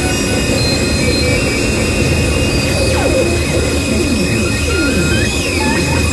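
Harsh noise music played live on electronic gear: a dense, loud wall of noise with steady high whining tones, and several falling whistling glides through the second half.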